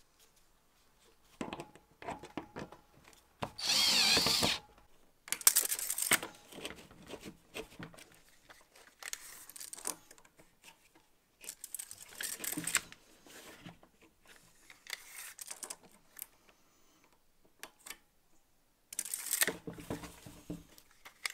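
A power drill runs once for about a second, a few seconds in, with a wavering whine. Several shorter scraping, handling bursts come before and after it.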